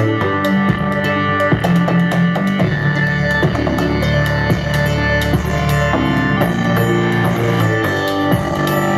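Rock music with guitar and a drum kit, played back through a homemade MDF Bluetooth speaker with two round drivers and a bass port.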